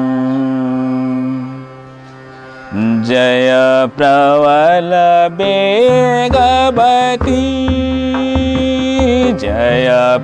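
Male Hindustani classical vocalist singing a slow, ornamented line with sliding, wavering notes over a steady harmonium drone. A held steady note opens; the voice enters about three seconds in.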